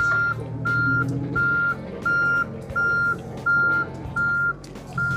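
John Deere mini-excavator's travel/backup alarm beeping in an even, steady rhythm, about one and a half beeps a second, as the machine moves on its tracks, over the steady hum of its running diesel engine.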